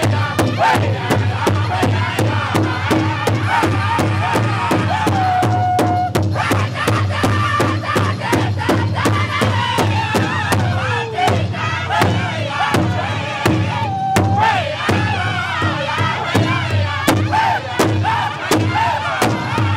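Powwow drum group singing loudly together over a steady, even beat, many drumsticks striking one large hide drum at once. High lead voices slide down in pitch, with brief breaks in the singing twice while the drumbeat keeps going.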